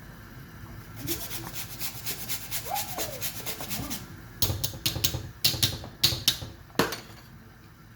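Fresh ginger grated on a hand grater: a quick, even run of rasping strokes, several a second, followed by a few sharp knocks.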